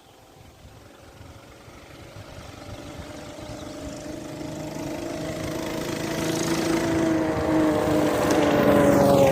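Axis M200 mini bike's small single-cylinder engine running at steady speed, approaching from a distance and growing steadily louder until it passes close by near the end, its pitch dropping slightly as it goes past. The bike is running with its jackshaft removed, on a direct chain drive.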